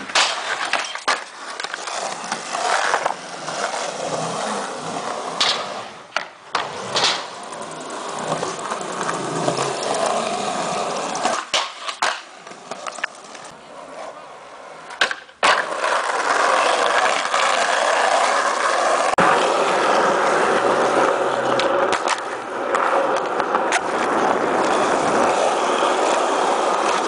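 Skateboard wheels rolling on concrete, broken by several sharp clacks of tail pops and board landings in the first half; from about halfway on, a steady, louder roll.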